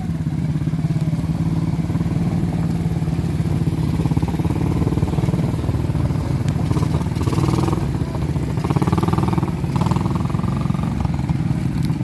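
Small ATV engine running steadily at a low, even speed, with a fast, even firing pulse.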